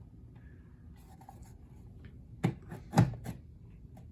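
Handling noise from a plastic wall-mount alarm siren being turned over and fitted back together: light rubbing with a few short knocks, the two loudest about two and a half and three seconds in.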